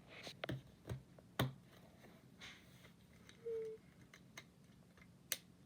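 Plastic magnetic building tiles clicking and knocking together as they are joined: several sharp clicks in the first second and a half, the loudest about a second and a half in, and one more near the end. A short single-pitched sound is heard about halfway through.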